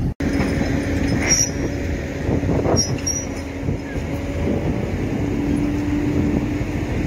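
Steady engine hum over a low outdoor rumble, with a few faint metallic clinks.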